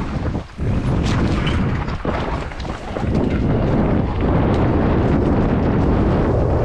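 Wind buffeting an action camera's microphone mixed with the rattle of a bike going fast down a rough forest trail: a loud, steady rumble that drops out briefly about half a second in.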